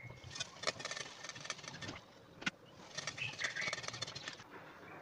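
Hot ghee crackling and sizzling in a wok as anarse deep-fry, in two spells with a short pause between them. A single sharp click about halfway through, and a short high chirp a little after three seconds in.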